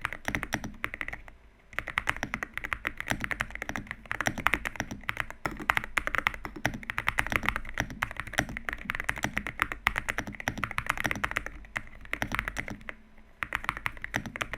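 Typing test on an Akko MU01 walnut-wood mechanical keyboard with Akko V3 Piano Pro linear switches and PBT MOA keycaps: rapid, continuous key strokes with two short pauses. A muted, well-dampened, polite-sounding typing sound.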